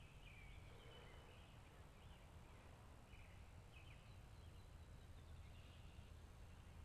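Quiet woodland ambience: faint songbirds calling, short high chirps every second or so, over a steady low rumble.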